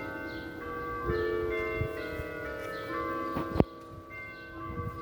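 Church bells playing a hymn tune, a new note struck about every half second, each ringing on over the next. A sharp click cuts in about three and a half seconds in.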